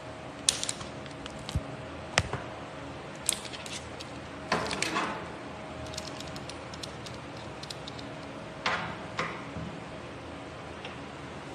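Scattered clicks, knocks and short rattles of small metal parts being handled, as of an articulated camera magic arm and its clamp being moved and adjusted, with a noisier scraping cluster about four and a half seconds in and another near nine seconds.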